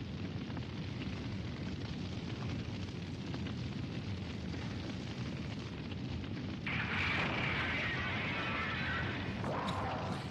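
Sound effects of a crashed airliner burning: a steady low rumble of fire. About two-thirds of the way through comes a sudden, louder blast with a hissing rush that lasts about three seconds.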